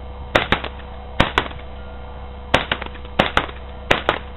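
Umarex HK USP CO2 non-blowback airsoft pistol firing about five shots at an uneven pace. Each sharp crack is mostly followed a fraction of a second later by a second, fainter crack.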